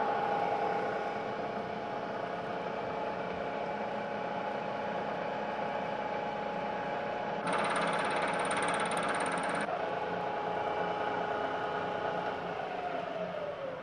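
Milling machine spindle running steadily while the fourth side of a steel part is milled. For about two seconds in the middle the cutter is heard biting into the metal, a louder stretch with a high whine. Near the end the spindle winds down, its pitch falling.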